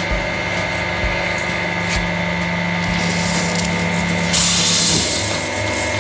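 Hydraulic press running with a steady whine as its ram crushes a frozen plastic Coca-Cola bottle. About four and a half seconds in there is a loud hiss of cola spraying out of the split bottle for about half a second, and the press's lower hum stops just after.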